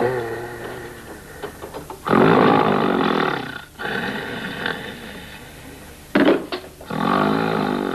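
Loud snoring from a sleeping man: two long, loud snores, one starting about two seconds in and another about six seconds in.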